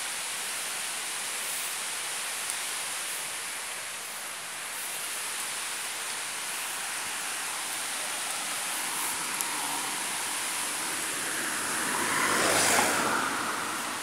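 A car passing close by, swelling up and fading away about twelve to thirteen seconds in, over a steady rushing hiss.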